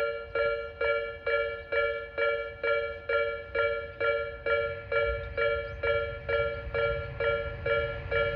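Japanese railway level-crossing alarm ringing its two-tone 'kan-kan' strike, about two strikes a second, warning of an approaching train. In the second half the low rumble of the oncoming train rises beneath it.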